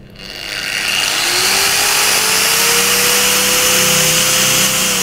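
Makita 9553B angle grinder with an add-on soft starter, switched on and spinning up gently rather than with a jolt. Motor and disc noise builds over about a second while a whine rises in pitch, then the grinder runs steady at full speed. The whine begins to drop near the end as the tool slows.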